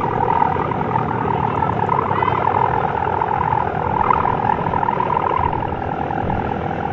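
4-metre sendaren, the bowstring hummer on a 2-metre gapangan kite, droning loudly in the wind with a rough, warbling, snoring growl.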